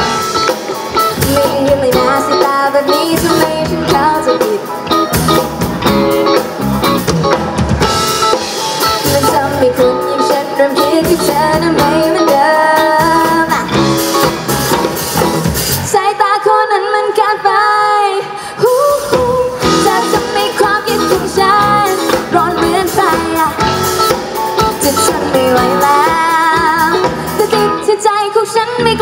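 Live band playing a pop song with a drum kit. Just past halfway the drums and bass drop out for about two seconds, then the full band comes back in.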